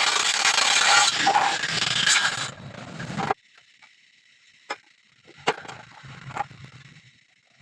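Electric arc welding crackling and hissing, then stopping abruptly a little over three seconds in. A few light sharp taps follow.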